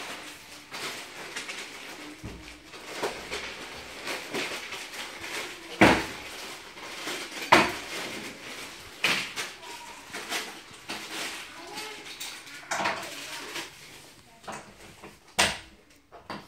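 Metal fittings and tools clinking and knocking against the laminated board of a flat-pack bed frame as they are handled during assembly. The knocks are irregular, and three sharper ones stand out.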